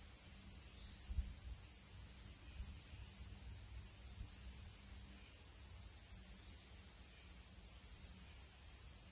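Steady, high-pitched chorus of insects, the continuous shrill trill of crickets, with a faint low rumble underneath.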